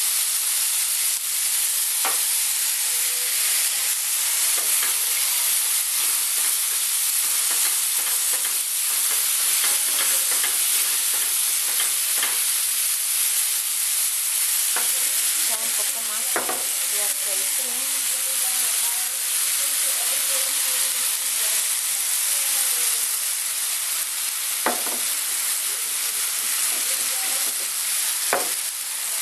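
Mushrooms, diced tomato and onion sizzling in oil in a skillet: a steady frying hiss. A few sharp clicks of a utensil against the pan are heard through it.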